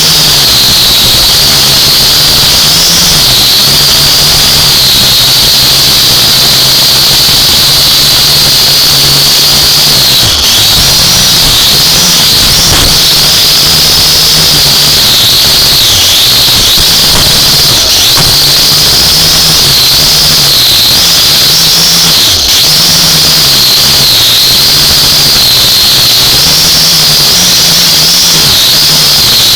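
Drone motors and propellers running loud and steady, with a high whine that wavers in pitch and a low hum beneath it.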